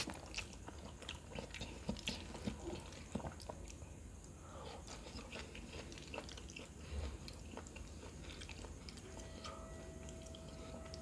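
Close-miked eating of noodles: quiet chewing with small mouth clicks, and now and then a metal fork scraping and tapping on the plate.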